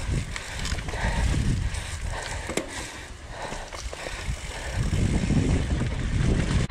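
Mountain bike rolling fast down a loose dirt trail: continuous tyre noise over soil with a low rumble, and scattered knocks and rattles from the bike over bumps.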